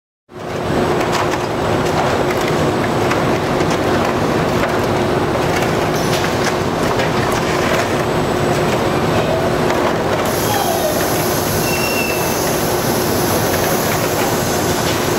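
Automated robotic layer depalletizer cell and its conveyors running: a steady mechanical din with a constant hum and scattered clacks, cutting in suddenly just after the start.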